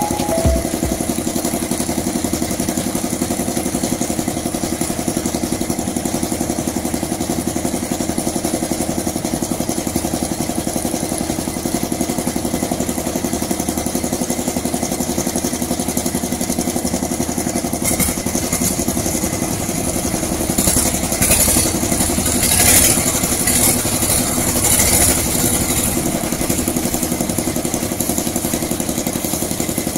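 Small engine of a concrete mixer running steadily. A stretch of clattering comes in about two-thirds of the way through.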